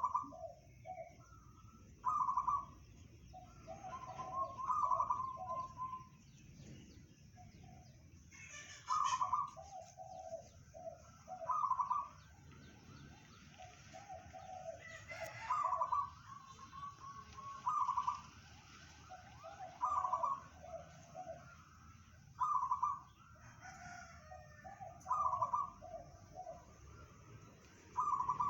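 Zebra dove (perkutut) cooing: a phrase repeated about every two seconds, each a higher note followed by a quick run of lower notes, with faint high chirping of small birds behind it.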